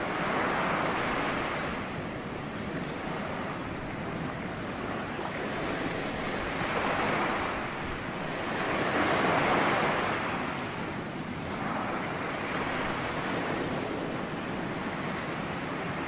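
Ocean waves washing onto a shore, a steady surf noise that swells several times as waves break, the loudest about nine to ten seconds in.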